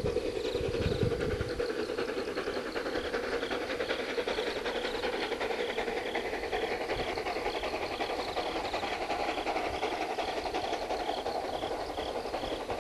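C2 class 0-8-0 narrow-gauge steam locomotive working hard up a steep grade, its exhaust beating in a steady, even rhythm with a hiss of steam.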